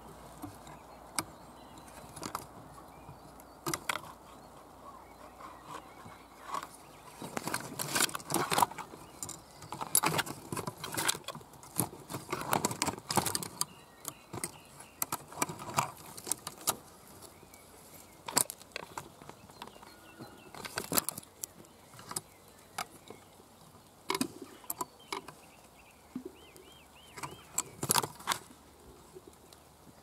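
Dry twigs and branches rustling, crackling and snapping close to the microphone as they are pushed aside, in irregular clusters of sharp clicks, busiest in the middle.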